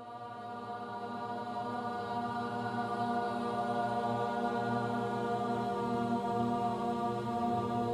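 Chanting voices holding one steady droning note, mantra-style, that fades in and grows louder over the first few seconds, then holds.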